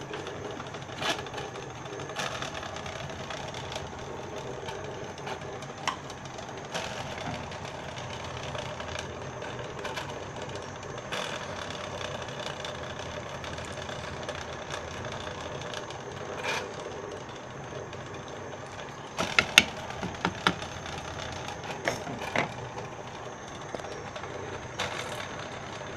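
A pot of black-eyed peas boiling hard on a gas stove, with steady bubbling and scattered sharp clicks, several in quick succession about three quarters of the way through.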